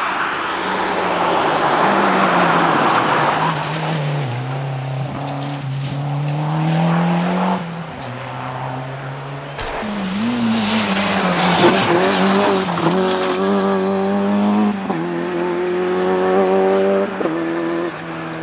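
Rally cars passing at full throttle, their engines revving up and dropping back at each gear change. A second car comes through about ten seconds in and accelerates away through the gears.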